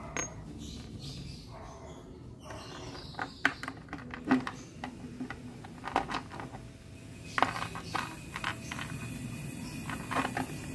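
Irregular light metallic clicks and knocks of parts being handled at a scooter's rear wheel hub and drum brake, with a few sharper knocks about midway.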